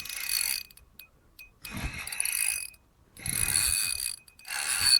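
Fishing reel being cranked in four short spurts, its gears whirring with a faint whine while line is wound in.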